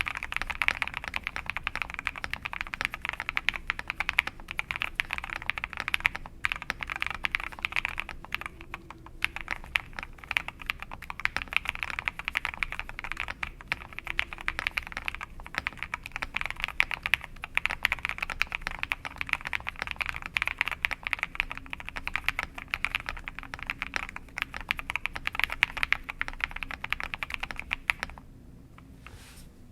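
Continuous fast typing on an Akko 5075B Plus mechanical keyboard fitted with lubed switches: a dense run of keystroke clacks, with a brief pause near the end.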